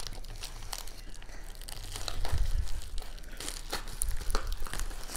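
Plastic bubble mailer crinkling and rustling as a hand handles it, with irregular crackles that get busier in the second half.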